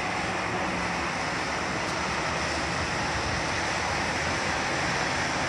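Steady hiss of traffic, car tyres on a rain-wet road.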